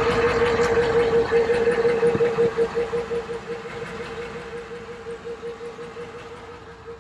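Shamrock boat's inboard engine running steadily after a tune-up with a new fuel filter and fuel pumps, with a fast, even beat and a steady hum; it sounds a lot smoother. It grows quieter over the second half.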